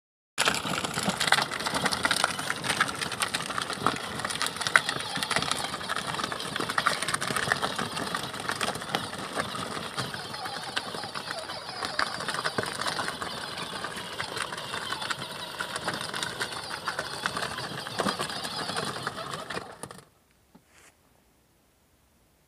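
Peg Perego battery-powered ride-on toy Jeep driving over a muddy dirt track: its small electric drive motors running and its plastic wheels rattling, a dense clicky noise that stops abruptly about twenty seconds in.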